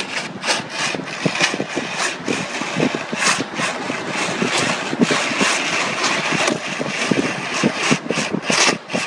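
Street traffic noise: vehicle engines running, with frequent irregular knocks and rattles.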